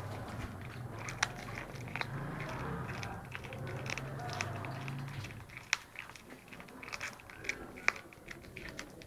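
A cat crunching and chewing raw chicken feet, the small bones cracking in sharp, irregular snaps. Several loud cracks come in the second half.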